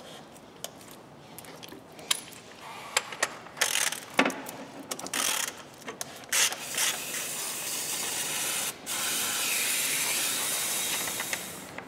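Scattered clicks and clinks of hand tools on engine parts, then a steady hiss for about six seconds that cuts out briefly once.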